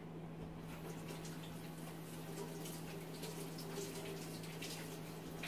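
Kitchen tap running as hands are washed under it, faint, coming in about half a second in, with a steady low hum underneath.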